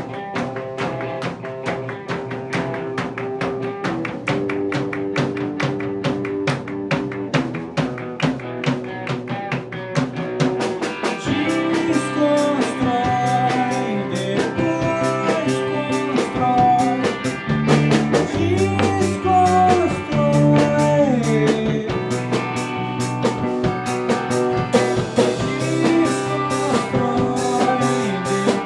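A band playing an instrumental passage of the song: steady, evenly repeated guitar strokes with drums. About a third of the way in the sound gets fuller, with a melody line that slides between notes.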